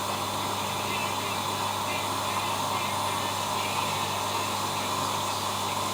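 ELIN WA 14 M washing machine running steadily, a constant low hum under an even whooshing noise.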